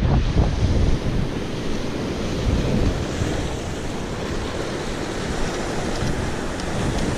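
Wind buffeting the microphone over sea surf washing against rocks, a steady, even rush of noise.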